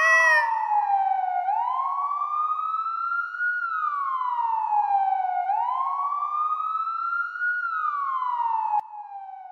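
Wailing siren, typical of a police car, rising and falling in a slow cycle of about four seconds. It turns suddenly quieter near the end.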